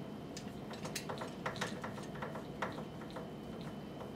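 Metal keg coupler being threaded by hand onto a beer line's nut: a string of light, irregular metallic clicks and ticks.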